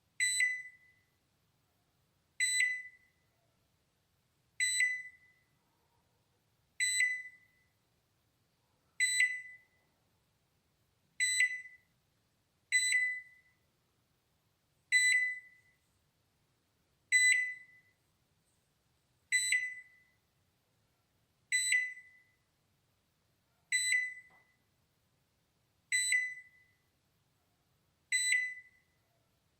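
Balay microwave oven's alarm: a single high electronic tone that sounds and fades over about half a second, repeating evenly about every two seconds.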